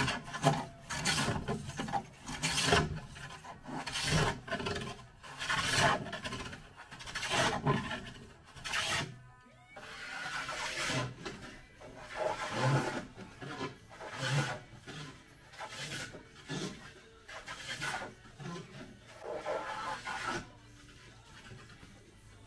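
A hand tool rubbing on Huon pine in repeated back-and-forth strokes, about one a second, shaping the wood. There is a brief pause near the middle, and the strokes stop shortly before the end.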